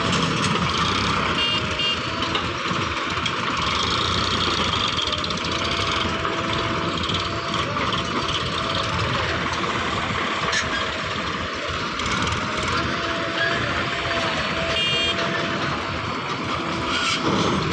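Backhoe loader's engine running steadily, with a reversing alarm beeping on and off.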